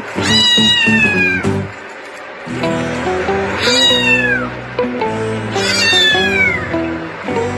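A cat meowing three times, each call a drawn-out meow that falls in pitch, over background music.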